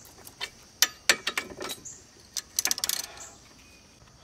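Wrench on a freshly loosened brake caliper bracket bolt, with scattered metal clicks and clinks and a quick run of clicks about two and a half seconds in as the bolt is worked loose.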